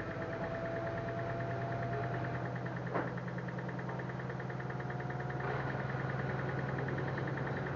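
LG F1089ND washing machine running through its cycle: a steady low hum with a thin, steady motor whine above it. A single sharp click about three seconds in.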